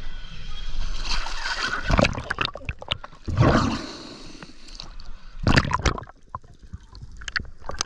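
Sea water splashing and sloshing close against the side of an inflatable boat, in loud surges about two, three and a half and five and a half seconds in, with gurgling and muffled bubbling where the microphone goes underwater.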